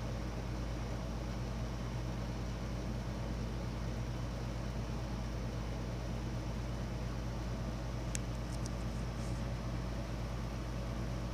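Steady low drone of a running machine, with a short run of faint clicks about eight seconds in.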